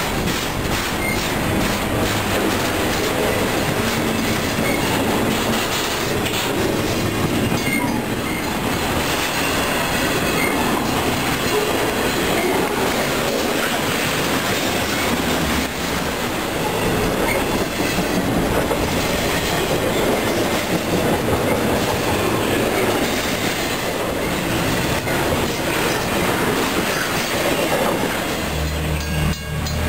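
Intermodal freight train of container and trailer cars rolling past at a grade crossing: steady rumble of the cars' wheels on the rails, with rhythmic clacking over the rail joints.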